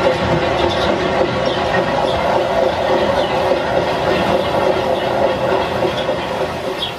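N-gauge model trains running on the layout's track: a steady whirring rumble of wheels and motors, with brief faint high squeaks now and then. It fades a little near the end.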